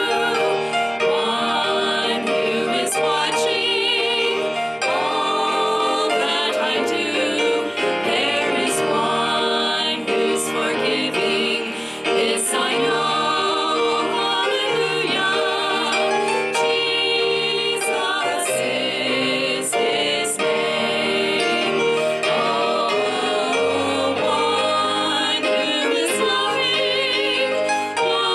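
Women's vocal trio singing a gospel song in harmony with vibrato through microphones, over an instrumental accompaniment with a low bass line.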